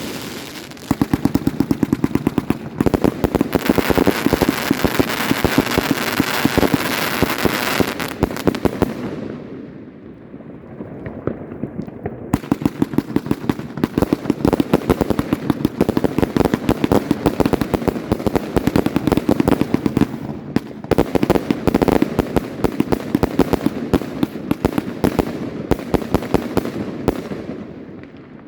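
Volt! Heisenberg firework battery firing a rapid, dense volley of shots. It eases briefly about ten seconds in, then picks up again.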